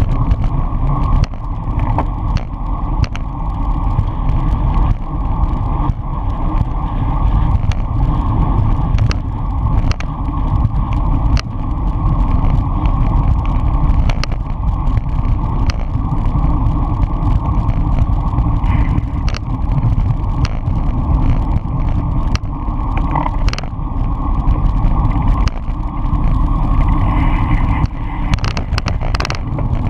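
Steady wind rumble and road vibration on a bicycle-mounted camera riding fast in a racing pack, with scattered sharp clicks and knocks from the bike.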